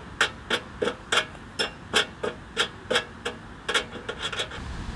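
Rapid, regular metallic clicks, about three a second, with a slight ring, from a small screwdriver turning screws inside a steel .50-calibre ammo can stove as its aluminum legs are fitted; the clicking stops about four and a half seconds in.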